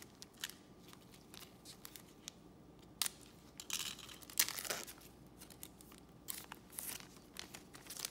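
A trading-card pack's wrapper being torn open and crinkled, the loudest tearing about halfway through. Sharp rustles and snaps of the cards being handled come before and after it.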